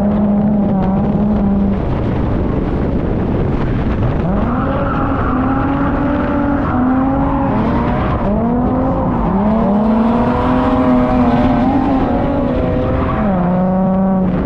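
Holden VY Commodore's Ecotec V6 engine revving hard through a drift, with tyres squealing. The revs drop away about two seconds in, climb back up around four seconds in and waver as the throttle is worked, then settle lower near the end.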